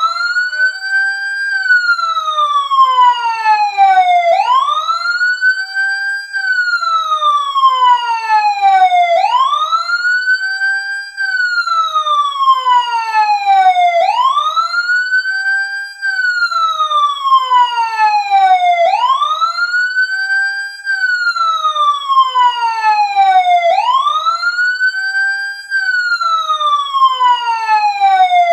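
Siren ringtone: a siren tone that sweeps up quickly, then slides slowly down, repeating about every five seconds.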